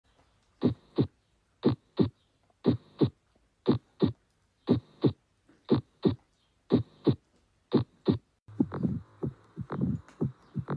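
Recorded heart sounds: eight clean paired beats, the first and second heart sounds, about one pair a second (roughly 58 a minute). About three-quarters of the way in, a different heart recording takes over, with closer, less regular beats over a steady noise.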